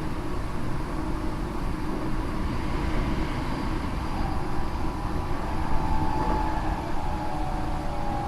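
Interior running noise of a Tokyo Metro 8000 series electric train with a Mitsubishi IGBT VVVF inverter: a steady rumble of wheels on rail. About five and a half seconds in, the motor whine comes up and slowly falls in pitch as the train slows on the approach to a station. This car is known for an abnormal motor sound that is rough and muddy at most speeds.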